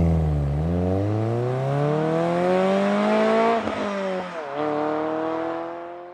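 Car engine accelerating, its pitch climbing steadily and dropping back at each upshift, three times, before the sound fades away toward the end.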